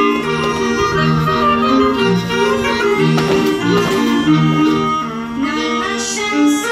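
Live Czech folk dance music from a small folk band, a fiddle among the instruments, with a lively tune over a moving bass line.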